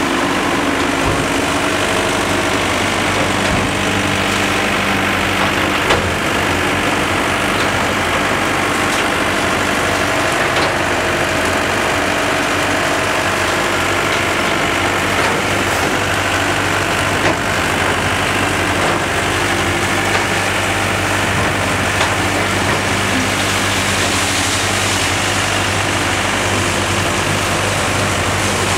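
Heavy demolition machinery running steadily: excavator diesel engines and a misting dust-suppression cannon, an even drone with a low hum. A few sharp knocks break through as an excavator works the rubble.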